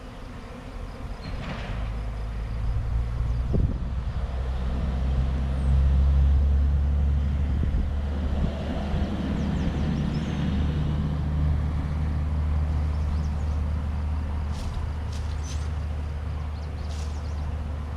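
A low, steady engine rumble that shifts pitch a few times, with a few sharp clicks near the end.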